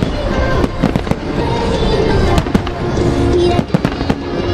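Starmine fireworks barrage: many sharp bursts and crackles going off in quick succession, over a song played through loudspeakers.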